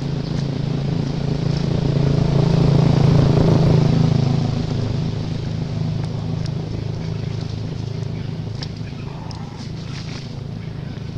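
A motor vehicle engine running steadily, growing louder about three seconds in and then slowly fading, as if passing by. A few faint clicks come near the end.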